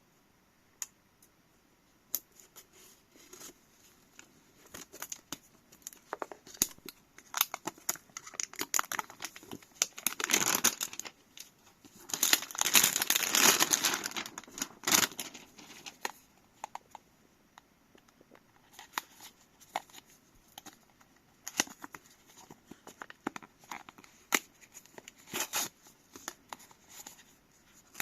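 Packaging being handled and opened by hand: scattered clicks and rustles of cardboard and wrapping, with two longer stretches of tearing and crinkling, the louder one about thirteen seconds in.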